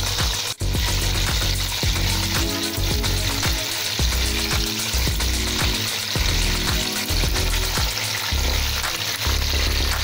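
Turmeric-coated fish pieces sizzling steadily as they fry in hot oil in a pot, with a brief break about half a second in.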